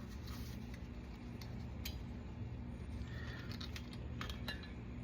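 Faint, scattered metal clicks and taps of small brake hardware being handled while fitting a truck's brake pad retaining pins and clips, over a low steady hum.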